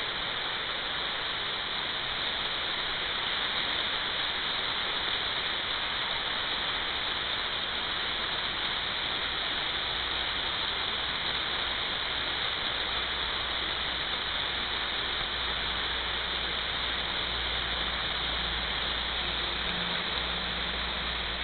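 Steady rushing hiss of running water, with a low rumble joining about ten seconds in.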